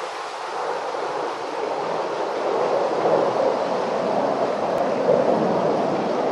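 Steady rushing noise with no distinct events, a little louder in the middle.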